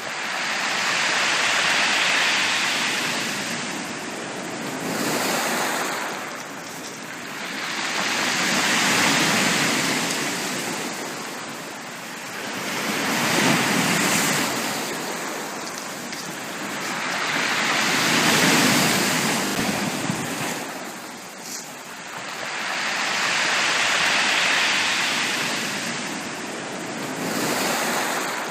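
Sea waves breaking on a beach, the surf swelling and fading in slow surges about every five to six seconds.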